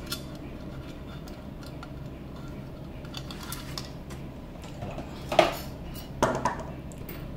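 Small metal clicks and clinks as a toroidal power transformer and its mounting hardware are handled on a metal case plate, with two louder knocks about five and a half and six seconds in.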